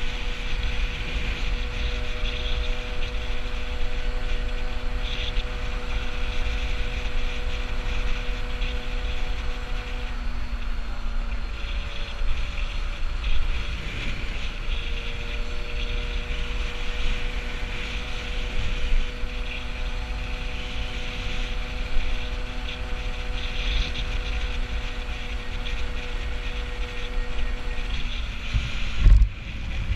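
Peugeot 103 moped's small two-stroke single-cylinder engine running at a steady cruising pace, with wind noise on the microphone. Its note falls away for a few seconds in the middle and then picks up again. A brief loud thump comes near the end.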